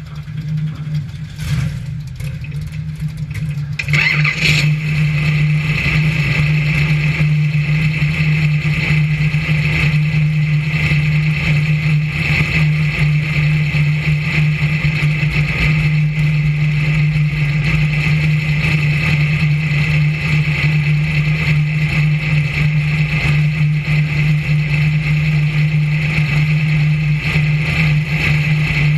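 Brisca F1 stock car's V8 engine idling steadily while the car sits stationary. It gets louder about four seconds in, when a steady high hiss joins it, then holds even with no revving.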